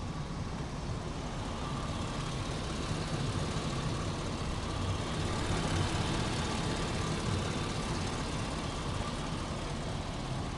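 2003 Hummer H2's 6.0-litre V8 idling steadily, heard from over the open engine bay.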